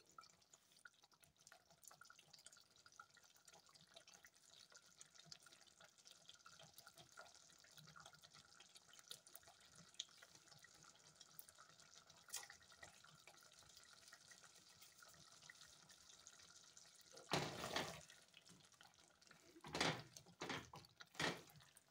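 Faint bubbling and popping of a thick goat stew simmering in a stainless steel pot. Near the end a wooden spoon stirs it in a few short bouts of scraping and squelching.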